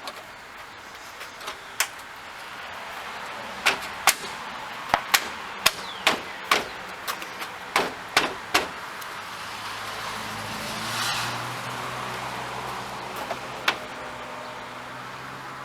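Sharp plastic clicks and knocks as the Ford F350's plastic grille is lined up and pushed onto its retaining clips, a dozen or so over several seconds. From about ten seconds in, a steady low hum with a brief swell of rushing noise.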